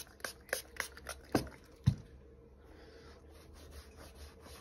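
A cloth wiping a sneaker: several short, sharp scuffing strokes in the first two seconds, then softer, quieter rubbing.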